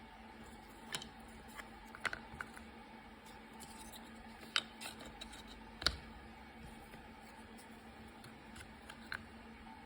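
Scattered light clicks and taps, a few sharper ones around the middle, over a faint steady hum.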